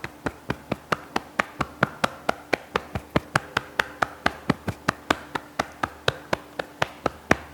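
Light, even taps of a hollow (loosely cupped) fist on the upper chest just below the collarbone, about four a second.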